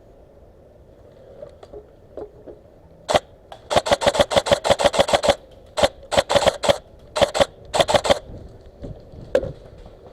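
Airsoft gun firing close by in rapid semi-automatic or automatic strings: a single shot, then a long quick burst of about a dozen shots, several shorter bursts, and a last single shot near the end.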